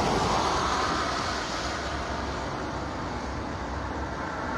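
Steady rushing noise of a passing vehicle, loudest at the start and slowly fading.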